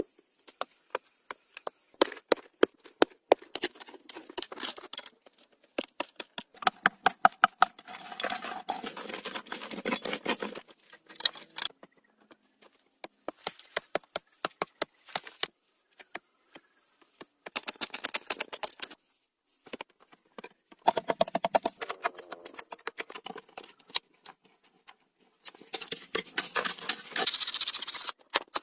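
Sharp clicks and knocks mixed with spells of scraping and rustling, in short stretches broken by sudden silent gaps: hands working with wood and branches.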